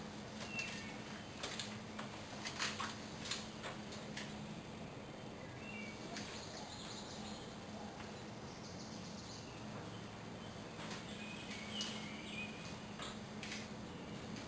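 Faint woodland ambience: scattered short high chirps, a few clusters of light clicks, and a steady low hum.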